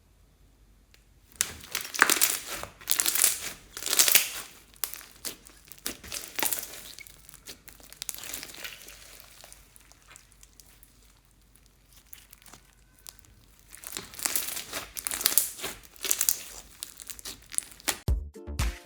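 Slime being squished and stretched by hand, giving wet crinkly popping noises in two busy spells of a few seconds each, with softer handling between. Electronic dance music starts right at the end.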